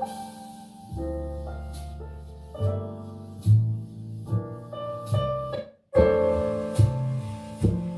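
Piano-led music with deep bass, played at maximum volume through a small portable Bluetooth speaker. It cuts out for a moment a little before six seconds in and comes back louder.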